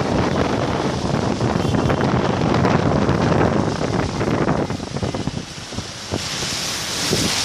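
Heavy rain and rushing water with wind buffeting the microphone; the noise dips briefly about five seconds in, then a brighter, steadier hiss takes over near the end.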